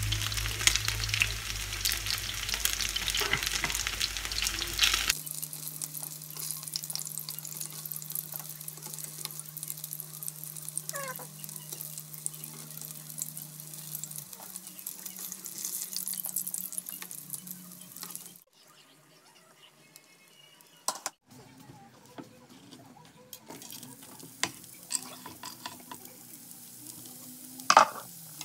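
Battered chicken breast pieces sizzling as they fry in oil in a non-stick pan, with metal tongs clicking against the pan as pieces are lifted out. The sizzling is loudest at first and drops away sharply after about 18 seconds, leaving a quieter stretch of scattered clicks and a sharp knock near the end.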